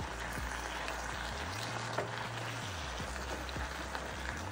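Cabbage and bacon sizzling steadily in a skillet as they fry, with a few faint ticks from a wooden spoon stirring them. A low steady hum runs underneath.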